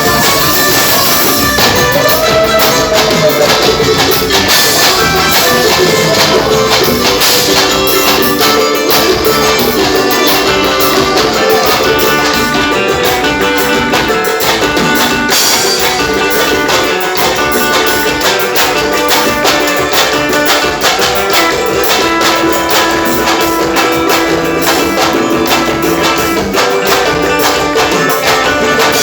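Reisado folk music played live: tambourines shaken and struck in a fast, even rhythm over strummed guitar and sustained pitched notes.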